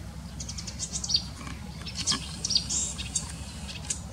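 An Acrocephalus warbler (marsh or Eurasian reed warbler) singing: fast, varied high-pitched trills and chirps strung together in quick phrases.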